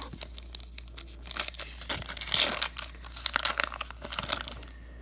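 Baseball card pack being torn open by hand, its crimped wrapper tearing and crinkling in a run of crackles from about a second in, loudest near the middle.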